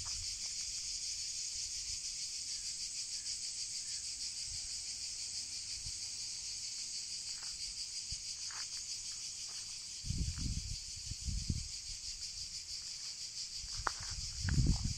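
A steady, high insect chorus chirring with a fast pulse, with two brief spells of low rumbling about two-thirds of the way in and near the end.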